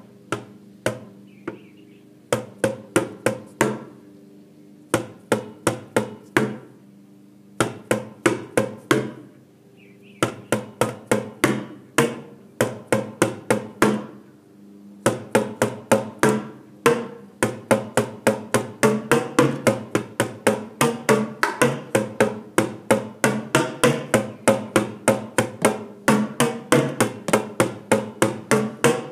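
Drumsticks beating on upturned plastic buckets played as a makeshift drum kit. The hits come in short runs with brief pauses over the first fifteen seconds, then settle into a steady fast beat of several strikes a second.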